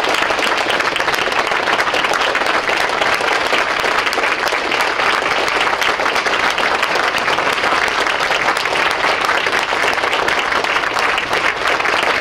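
Large audience applauding steadily, a dense, even wash of many hands clapping.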